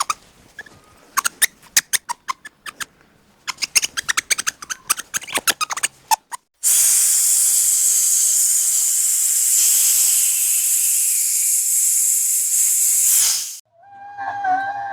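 Animal sounds: quick sharp clicks and squeaks for the first six seconds, then a loud steady hiss of about seven seconds that cuts off suddenly.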